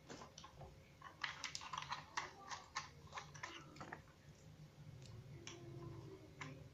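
Plastic clicks and rattles from a toy helicopter being handled and a snap-on wing piece pulled off. There is a quick run of clicks about a second in, then only a few scattered ones.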